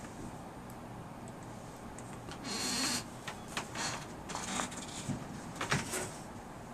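Faint movie-trailer audio playing from a computer's speakers, heard in the room: a handful of short hissy swishes and clicks over a steady low background hiss, the longest about two and a half seconds in.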